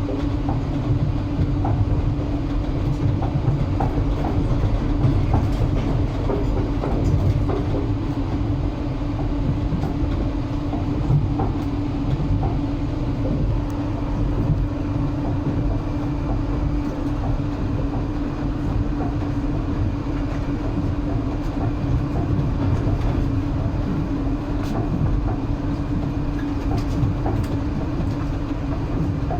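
Train wheels running on the rails, heard from on board: a steady low rumble with a constant hum and light scattered clicks.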